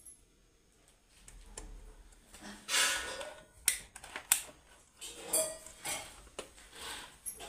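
Handling noise from a digital multimeter and its test leads being moved and repositioned: rustling and small knocks, with two sharp clicks near the middle.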